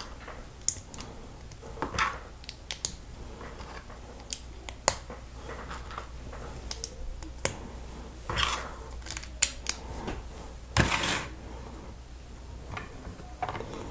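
Small plastic LEGO pieces clicking and clattering as they are handled and pressed together, in irregular sharp clicks, with a louder half-second scraping rustle about eleven seconds in.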